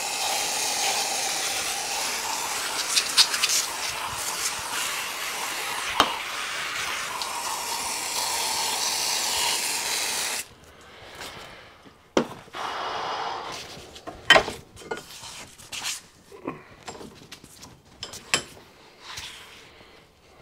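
Drill-driven wire brush scouring rust out of the bore of a cast-iron steam-engine trunk guide, a steady whirring scrub with a few sharp ticks, stopping suddenly about ten seconds in. After it come scattered clinks and knocks of the metal parts being handled.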